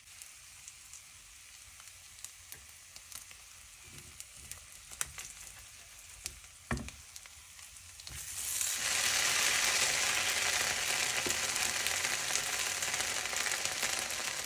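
Food frying in a pan: faint crackling with a few light clicks and a knock about seven seconds in, then the sizzle swells loud about eight seconds in and holds steady.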